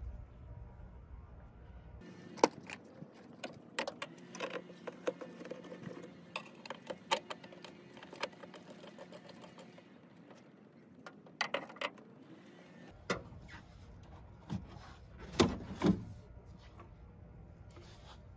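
Scattered clicks and knocks of gloved hands and a hand tool working at the plastic air-intake duct and mass airflow sensor of a Duramax diesel engine. The sharpest knock is about two seconds in, with a pair of louder ones near the end.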